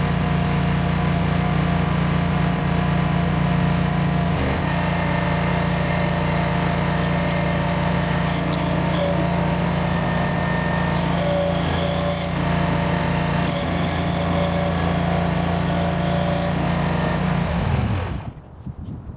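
Barreto 30SG hydraulic stump grinder's engine running steadily as its cutter wheel grinds into a stump. The sound dips slightly in pitch and cuts off near the end.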